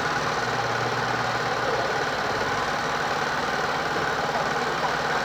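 A motor running steadily, with a fast even pulse.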